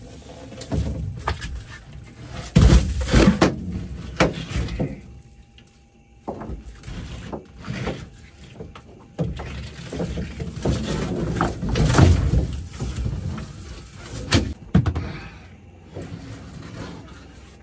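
A longnose gar being landed in a mesh net and handled on the boat deck: a string of irregular knocks, bangs and rattles, loudest about three seconds in and again around twelve and fourteen seconds.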